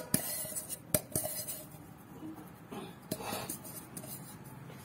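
Steel pan knocked and clinked as it is tipped to spread flour over its greased sides: a few sharp metallic clinks in the first second, and fainter clinks about three seconds in.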